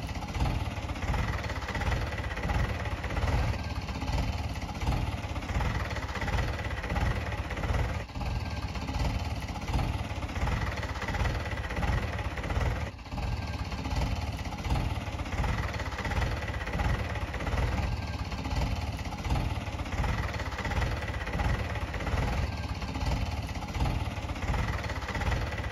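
Diesel engine of a Mahindra tractor idling with a steady low throb while its tipper trailer stands raised after dumping its load.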